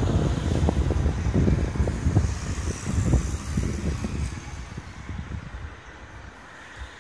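Wind buffeting the microphone: a gusty, uneven low rumble that dies away about five or six seconds in, leaving a faint steady hiss.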